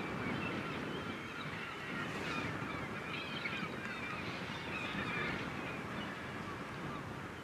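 A flock of birds calling over one another, with many short overlapping high calls, over a steady low rumble.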